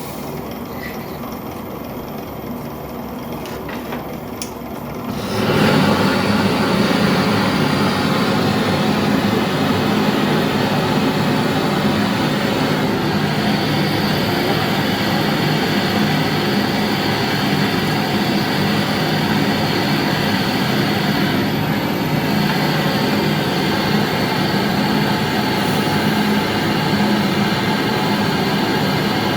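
A gas torch comes on about five seconds in and burns with a loud, steady rushing noise while it heats the ultrasonic drill horn to melt the solder for the needles.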